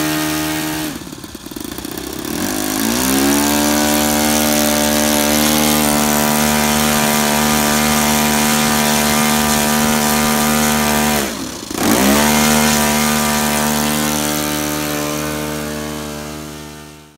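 Saito FA-62 four-stroke glow engine on an RC model plane, running on the ground with the propeller turning. About a second in the pitch drops as it is throttled back, then it climbs to a steady high run by about three seconds. Near eleven seconds it dips sharply and picks straight back up, showing clean throttle response. The sound fades out at the end.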